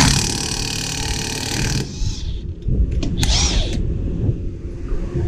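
DeWalt 20V Max cordless impact wrench hammering on a front-wheel-drive axle nut for about two seconds to break it loose. A second short burst about three seconds in runs the nut off.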